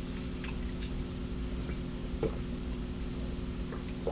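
A few faint clicks and taps from a plastic water bottle being picked up, opened and raised to drink, over a steady low hum.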